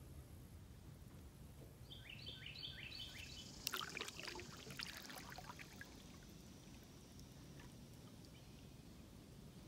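A bird sings a short phrase of four or five quick falling notes about two seconds in. About a second later comes a brief patter of water dripping and splashing off a kayak paddle. A faint low rumble lies underneath.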